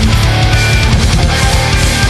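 Progressive death metal recording: distorted electric guitars over fast, dense drumming, loud and unbroken.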